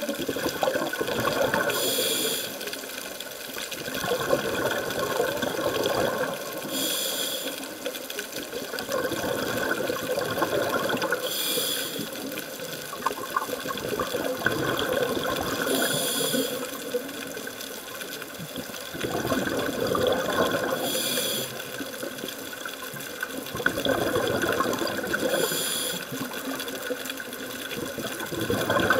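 Scuba diver breathing through a demand regulator underwater: a short hiss of each inhalation about every four and a half seconds, six times, each followed by a longer gurgling rush of exhaled bubbles.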